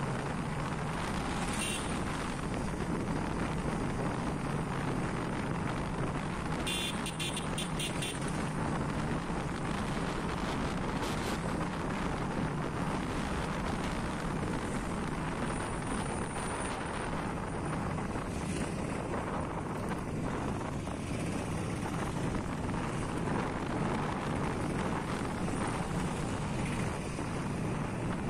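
Motorbike running at road speed, heard from the rider's seat, with a steady rush of wind on the microphone. A brief sharp noise comes about seven seconds in.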